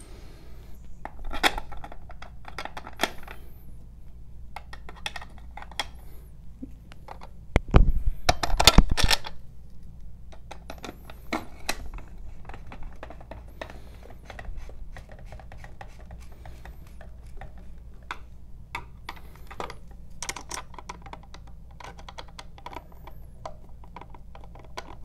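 Hand screwdriver tightening mounting screws through a plastic Sensus SmartPoint meter radio into a gas meter: a run of small clicks and scrapes, with a louder clatter of knocks about eight seconds in.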